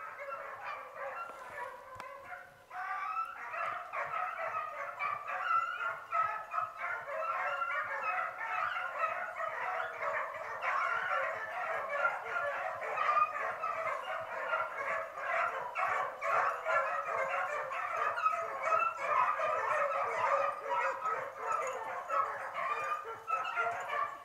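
A pack of beagles baying as they run a rabbit's trail, several voices overlapping without a break. The cry dips briefly about two seconds in, then swells and carries on.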